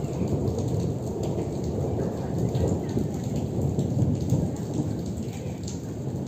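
Heavy rain pouring during a thunderstorm, with a continuous low rumble of rolling thunder swelling and fading beneath it and scattered sharp drop hits.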